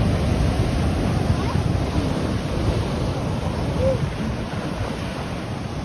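Ocean surf churning and washing over a rocky shoreline, with wind buffeting the microphone; a steady rush that eases slightly near the end.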